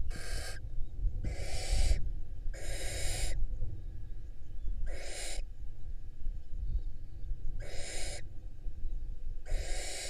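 Barn owls hissing in the nest box: six harsh, rasping hisses, each about half a second to a second long, with irregular gaps between them.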